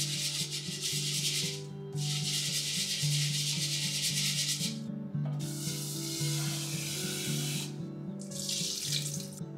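Raw rice grains stirred and rubbed by hand in rinse water in an earthenware donabe pot, a gritty swishing in spells of a few seconds each, with the cloudy rinse water poured off near the end. Soft background music plays underneath.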